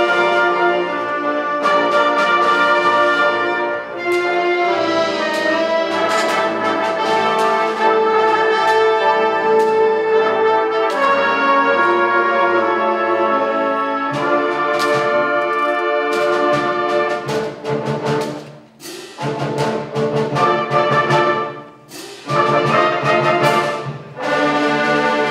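High school symphonic band playing a brass-led film-score arrangement. The first half is held brass chords; from about halfway the low brass grows heavier in sharp accented chords, broken by two or three short pauses.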